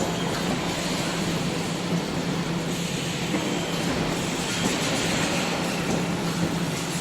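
Machinery of an EPS 3D steel-wire panel production line running: a steady low hum under continuous mechanical noise.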